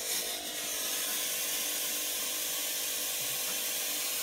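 FX Lab Mini 400 W fog machine pumping out fog: a steady hiss of the fog jet with a faint, even hum under it.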